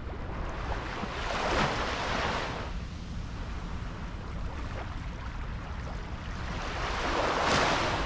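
Gentle waves washing up onto a sandy beach: two small breakers swell and hiss up the sand and fade, one a little after a second in and a louder one near the end, over a steady low rumble.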